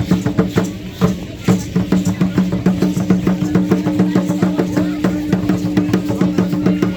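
Aztec dance drumming: a fast, even beat of about five strikes a second over a steady sustained drone.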